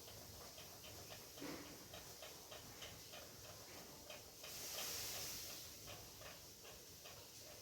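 Ceiling fan running, with a faint, regular ticking of about four clicks a second and a short swell of airy whoosh around the middle.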